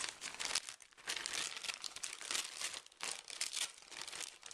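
Dense, irregular crinkling and crackling of close handling noise, with no voice.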